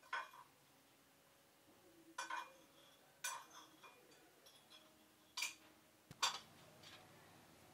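Dishes and cutlery clinking in a sink as they are washed by hand: about five short, sharp clinks spaced a second or two apart.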